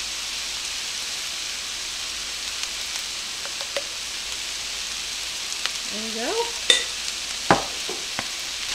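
Fried rice sizzling steadily in a hot skillet, with two sharp knocks near the end.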